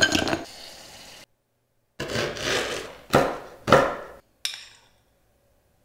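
Food-prep sounds: a silicone spatula scraping chocolate pieces from a bowl into a glass bowl, then, after a short pause, a chef's knife chopping nuts on a wooden cutting board in several crunchy strokes, the last a sharp knock.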